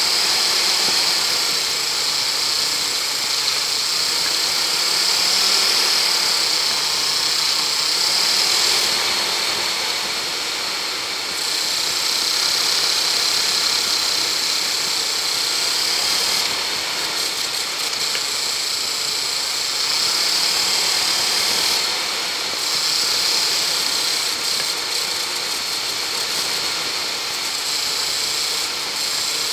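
Land Rover engine pulling along a woodland track, its pitch rising and falling every few seconds with the throttle, under a steady high hiss.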